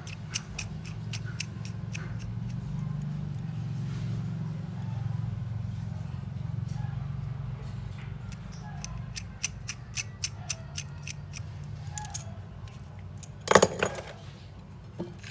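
Small tools and parts clicking and tapping lightly on a smartphone under repair, in scattered short ticks over a steady low hum, with a louder scraping burst near the end.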